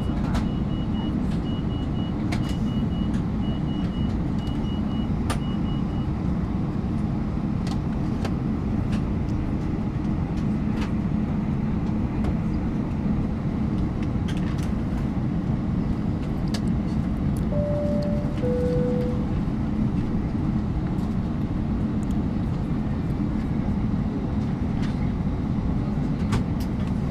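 Steady rumble of an Airbus A321's cabin air conditioning, parked before departure. A run of short high beeps sounds over the first six seconds, and a two-tone high-low cabin chime comes a little past halfway. Scattered light clicks sound throughout.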